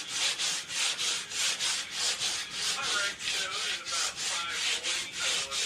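Sandpaper rubbed back and forth by hand on a wooden panel in quick, even strokes, about four a second, wearing the surface down to distress it.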